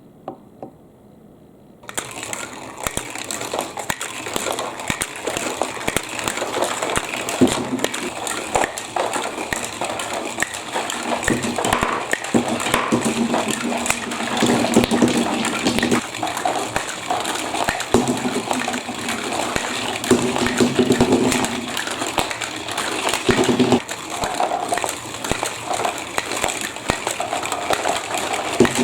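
Water running through a plastic building-block marble run, with marbles rolling and clattering along the plastic tracks in many small clicks and knocks. It starts about two seconds in.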